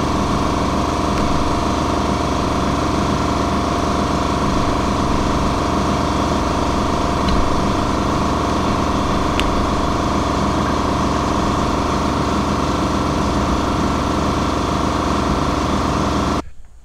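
A machine running steadily, a constant motor hum with several held tones, with a couple of faint clicks about halfway through; it cuts off suddenly just before the end.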